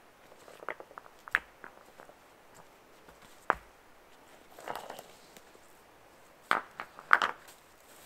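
Stones being handled and set down, knocking against each other, with brief rustling scrapes of forest-floor litter. A sharp single clack about three and a half seconds in and a cluster of louder knocks and scrapes near the end.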